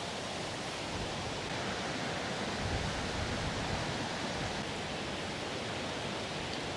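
Waterfall swollen by monsoon rain, giving a steady, even rushing noise of falling water.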